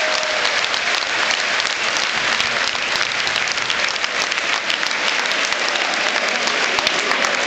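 Large football stadium crowd applauding: a dense, steady wash of clapping from the stands.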